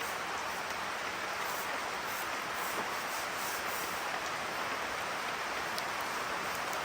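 Steady rain falling hard, an even hiss with a few faint drop ticks.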